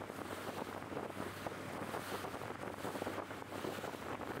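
Steady wind buffeting the microphone over choppy open water, with a faint low steady hum underneath.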